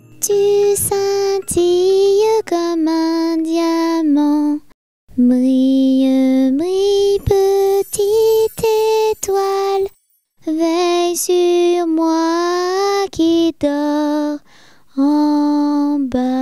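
A lullaby: a woman's voice singing a slow melody in held notes, with short pauses between phrases about five and ten seconds in.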